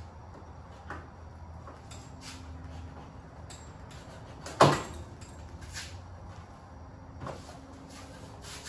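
Old fabric curtains being pulled and torn off a golf cart's canopy frame, with a few light knocks and one sharp, loud knock or snap about halfway through.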